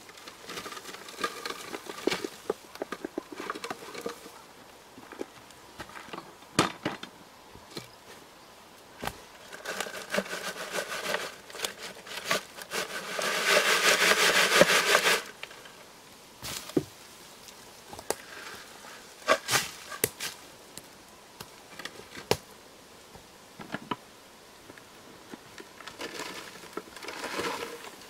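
Dry clay being rubbed and shaken through a wooden-framed screen sieve: irregular scraping and grating with scattered knocks, loudest and continuous for about two seconds near the middle.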